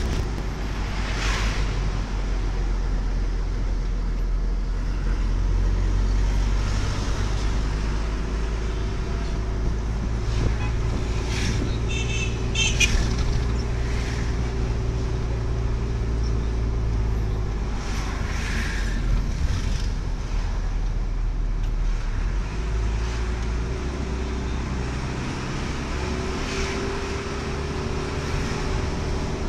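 Vehicle engine and road noise heard from inside the cabin while driving: a steady low drone whose note shifts about halfway through, with a few brief higher sounds from the traffic, the clearest about twelve seconds in.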